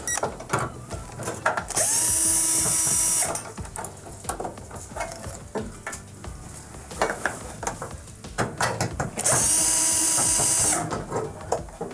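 A power screwdriver running twice, about a second and a half each time, as it backs out the two screws holding a gas range's control board; its motor whine rises at the start of each run and falls away at the end. Lighter clicks and knocks of handling come in between.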